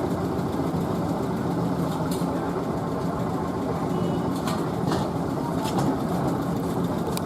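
Steady low background rumble, like traffic or a running machine, with a few faint sharp clicks.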